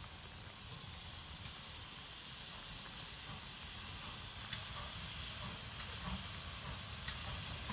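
GWR 2800 class 2-8-0 steam locomotive hissing steam as it starts to move slowly, the hiss growing a little louder as it comes nearer.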